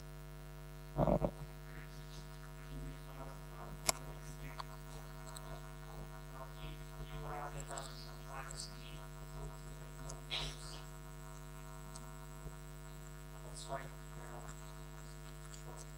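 Steady electrical mains hum, with a brief low voice-like sound about a second in and a few faint scattered clicks.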